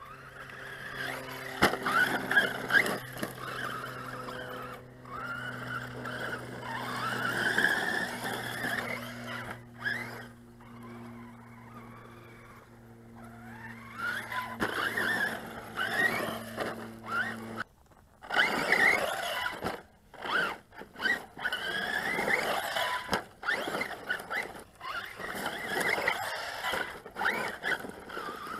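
JLB Racing 21101 RC truggy's brushless motor whining up and down in pitch in short throttle bursts, with tyres scrabbling and skidding on dirt. A steady low hum runs underneath for the first two-thirds and stops abruptly.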